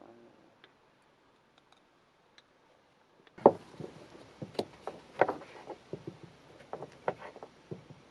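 Near silence for about three seconds, then a run of sharp clicks and light knocks with a short ring, irregular at about two or three a second: small objects being handled and set down.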